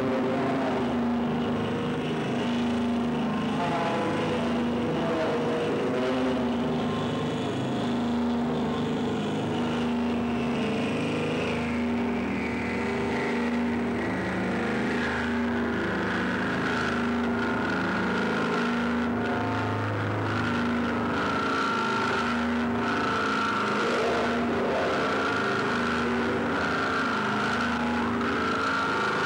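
Live electronic drone music played on synthesizers: a dense, steady wall of sound with a low tone pulsing in a repeating pattern and a higher tone that slides slowly downward about halfway through.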